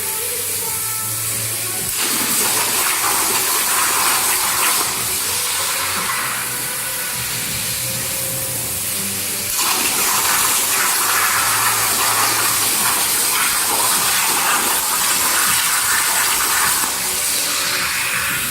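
CNC plasma cutting torch hissing steadily as it cuts through steel. It is louder in two stretches, a short one a couple of seconds in and a longer one from the middle to near the end.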